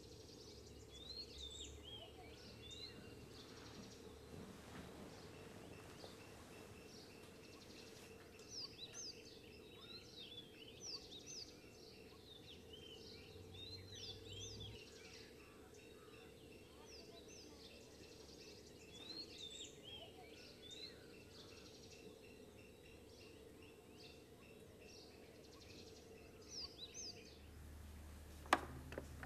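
Faint ambience of birds chirping and calling over a low steady hum. Near the end comes a single sharp click as a desk telephone handset is lifted.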